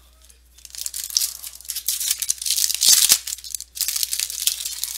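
Foil trading-card pack wrapper being torn open and crinkled in the hands, a dense crackly rustle that starts about half a second in, with a couple of light knocks midway.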